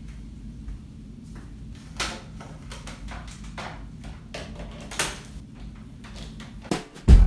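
Light handling sounds in a small tiled room: scattered knocks, clicks and rustles over a low steady hum, the loudest about two and five seconds in. A drum-heavy music track cuts in loudly right at the end.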